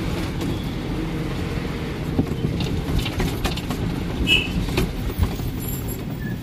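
Bus in motion, heard from inside: a steady low engine and road rumble with scattered short rattles and knocks.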